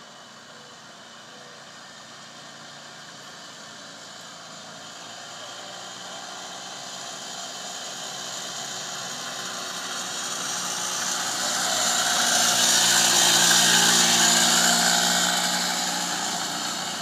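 A golf cart driving up a paved road, its running sound growing steadily louder as it comes close and passes, then falling away near the end.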